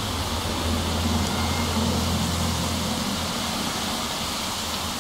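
Steady rain falling on a wet street, an even hiss with a low rumble underneath.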